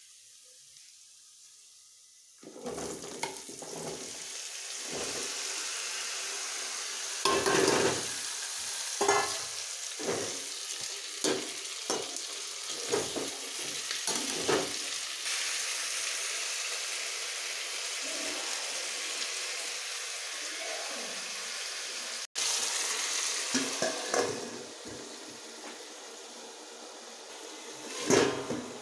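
Potato and cauliflower pieces frying in oil and masala in a kadai. The sizzle starts suddenly a couple of seconds in, and a steel spatula scrapes and knocks against the pan as the vegetables are stirred, many strokes at first and fewer later. Near the end a steel plate clanks onto the pan as a cover.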